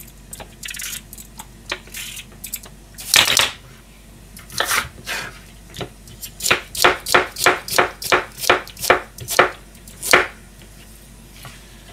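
Kitchen knife slicing lotus root on a plastic cutting board: a run of about a dozen sharp chops, roughly three a second, from about four and a half seconds in until about ten seconds in. A single louder knock comes about three seconds in.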